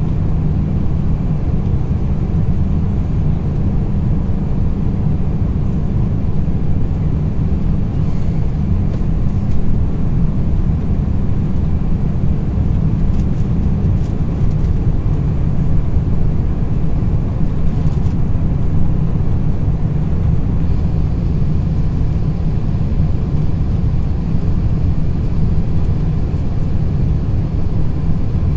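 Cabin noise inside an Airbus A350 on final approach with the landing gear down: a steady low rumble of the engines and the airflow.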